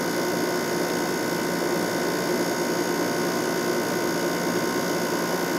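White-Westinghouse 5,000 BTU window air conditioner running steadily on high fan speed: an even rush of fan air with the steady hum of its LG compressor and GE fan motor.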